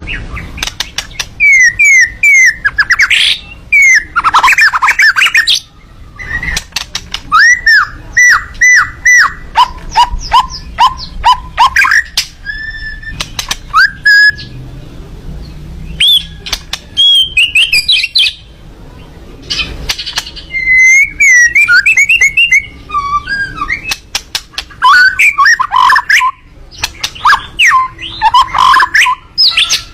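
Miwah songbird singing in 'tembakan' style: fast runs of sharp, repeated chirps and clear whistled notes, several quick series broken by short pauses.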